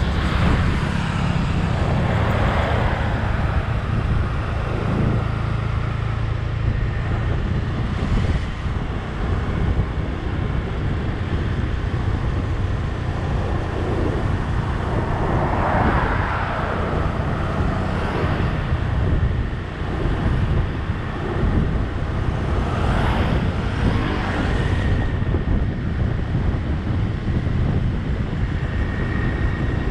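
Steady engine and road rumble heard from a moving road vehicle, with wind on the microphone, swelling louder a few times.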